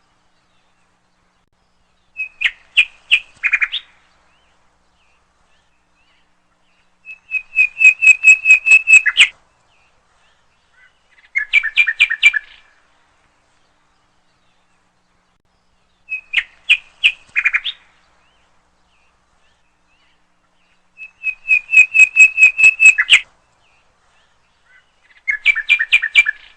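Nightingale singing in separate phrases a few seconds apart, each a quick run of repeated notes, some swelling in loudness, with silence between. The same three phrases come round again about fourteen seconds later.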